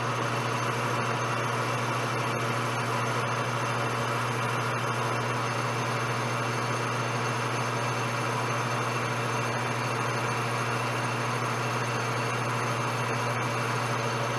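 Metal lathe running steadily, its spindle turning while a carbide-insert boring bar takes a light finishing cut inside a bore: the last pass of about seven thousandths to bring the hole to size. A steady low hum with a hiss over it, unchanging throughout.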